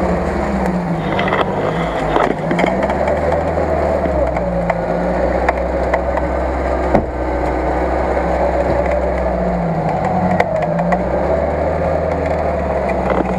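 UAZ-469 engine running steadily, its pitch drifting up and down a little. There are a few sharp clicks and knocks as the winch on the front bumper is handled.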